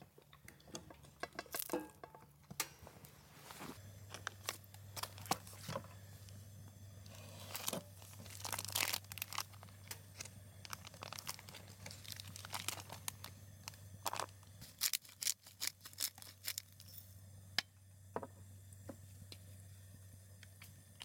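Scattered clicks, taps and crinkling from food and utensils being handled during a camp meal, with a low steady hum from about four seconds in.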